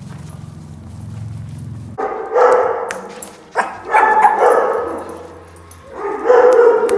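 Dogs barking loudly in three bouts, starting about two seconds in, over a low steady hum that comes before them.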